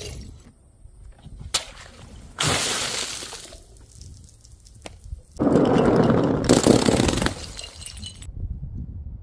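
Glass shattering. A sharp clink comes about a second and a half in, then two sudden crashes of breaking glass follow, the second one the loudest and longest, with sharp clinks of pieces in it.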